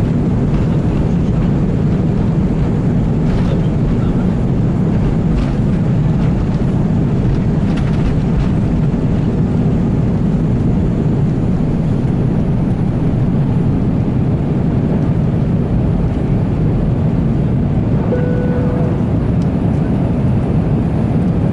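Steady cabin noise of an Airbus A320 in flight: a dense, even rush of airflow and engines, heaviest in the low range. Near the end there is one short, steady beep-like tone.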